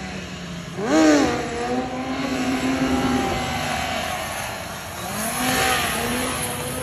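Sport motorcycle engine revved sharply about a second in, then held at high revs with the front wheel up in a wheelie, easing off and rising again near the end.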